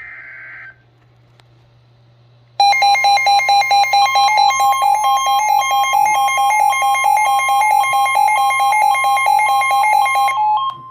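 Emergency Alert System broadcast signalling a Flash Flood Warning. It opens with a short burst of digital data tones from the end of the SAME header. Then, about two and a half seconds in, a loud two-tone attention alarm starts, pulsing several times a second and lasting about eight seconds.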